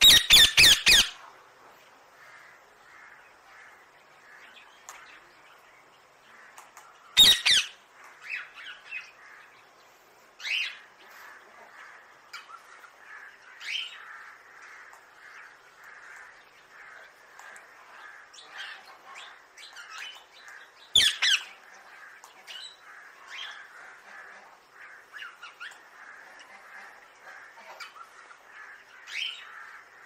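Caged rose-ringed parakeets squawking: a quick run of loud harsh calls at the start, then single squawks every few seconds, loudest about seven seconds in and again about twenty-one seconds in, over a faint steady background.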